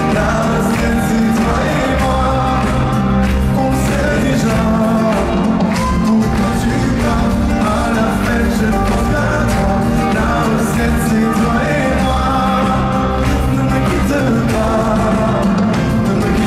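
Live pop performance: a male lead singer singing into a microphone over steady musical backing, amplified through a concert sound system.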